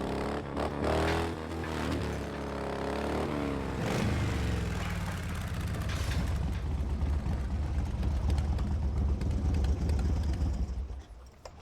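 A motor vehicle engine revving, its pitch rising and falling for the first few seconds, then running steadily with a low drone that fades out near the end.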